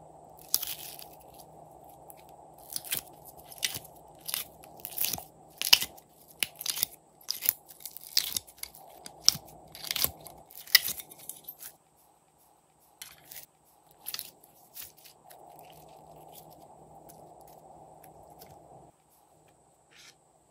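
Thick slime being pulled out of thin plastic tubs, with sharp crackling, clicking and crunching that is dense for about twelve seconds, then thins to a few scattered clicks.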